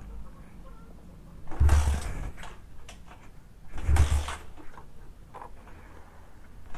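Motorcycle kick-starter pushed down twice, about two seconds apart, each stroke a heavy low thump as the engine is turned over.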